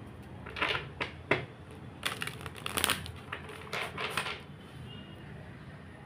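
Tarot deck being shuffled by hand: several short bursts of cards sliding and rustling against each other, stopping a little past halfway.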